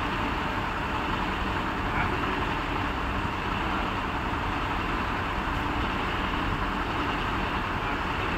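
Truck-mounted mobile crane's diesel engine running steadily.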